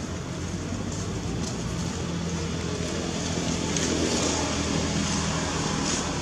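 A motor vehicle passing on a road, its engine hum swelling to its loudest about four seconds in, then easing off a little.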